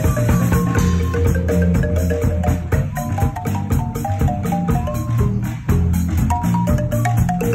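Marimba band playing: several wooden marimbas strike a quick, busy melody over deep bass notes, with a drum kit keeping a steady beat.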